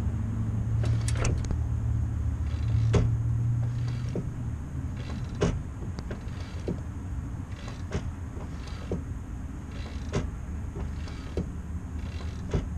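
Clutch pedal being pressed and released, with scattered clicks and creaks from the pedal and hydraulic clutch linkage, over a steady low hum that stops about five seconds in.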